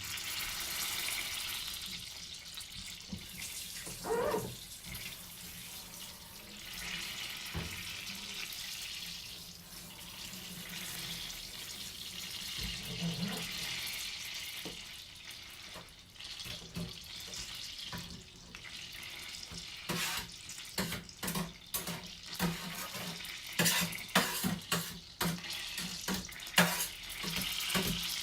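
Kitchen tap running into a sink as a dirty pan is washed by hand. From about halfway through, short knocks and clatter of the pan and dishes against the sink come thick and fast over the running water.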